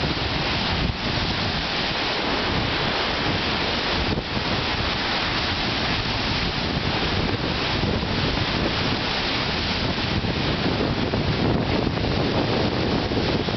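Strong wind blowing across the microphone over wind-driven waves breaking on a pebbly lakeshore: a steady, unbroken rushing noise.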